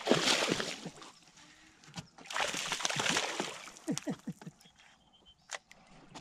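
A bass hitting a topwater bug lure with a splash at the surface, then splashing and thrashing again about two seconds later as it is hooked and fought, followed by a few small water gurgles and ticks.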